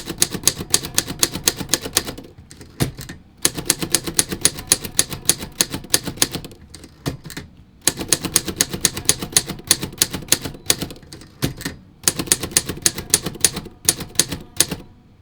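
1959 Torpedo 18B manual typewriter being typed on: runs of rapid, clicky typebar strikes, about seven a second, broken by three short pauses.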